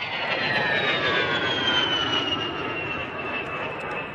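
A-10 Thunderbolt II jet flying past: the high whine of its two TF34 turbofan engines falls in pitch over the first two seconds and then holds steady, over a loud rushing roar.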